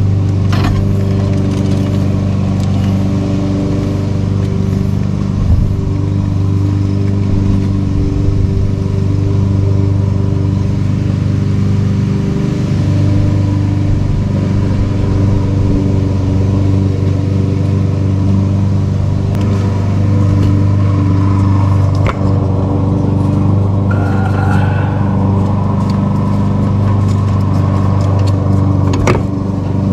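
Walk-behind push mower's small petrol engine running steadily at constant speed throughout, with a couple of short clinks of tools near the end.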